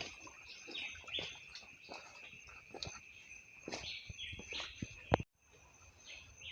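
Birds chirping over a steady high-pitched drone, with scattered light clicks and rustles. A sharp click comes about five seconds in, and the sound drops out for a moment.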